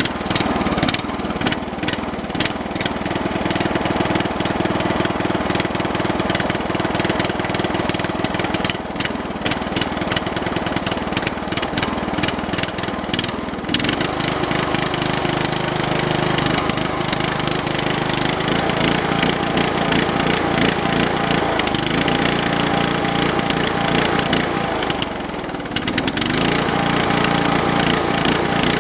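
Briggs and Stratton 13 hp OHV lawn tractor engine running just after start-up, its speed unsteady, dropping and picking back up about 14 seconds in and again near 25 seconds. It is not running happily: the owner suspects water in the carburetor float bowl, let in by a used fuel filter.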